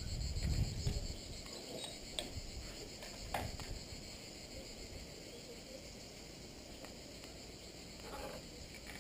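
Steady high-pitched chorus of insects outdoors, with low rumbles near the start and a few light clicks.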